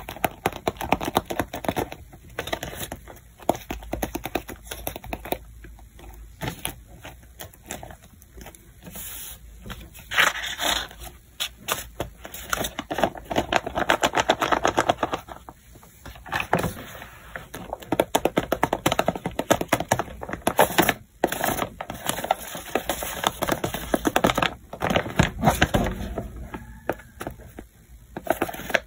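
Paper handled close to the microphone: sheets and a paper bag rustling and crinkling, with many quick clicks and taps from rolled-paper cone fingernails knocking against the paper.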